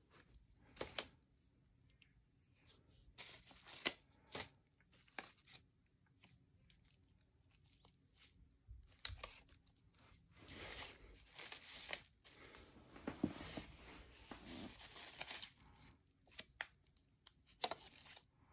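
Plastic packaging and bubble wrap crinkling and rustling as it is handled, with a few sharp clicks, and a longer stretch of crinkling about halfway through.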